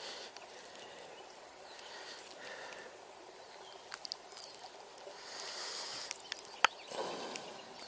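Small clicks and rustling from close-up handling, with one sharp click about two-thirds of the way in, followed by a brief rustle. Underneath is the steady rush of a shallow river riffle.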